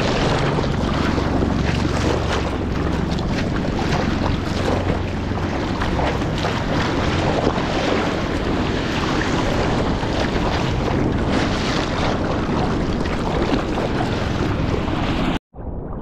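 Water splashing and rushing around a surfboard's nose as it is paddled through choppy waves, with wind buffeting the microphone. Near the end it cuts off abruptly and gives way to quieter water lapping.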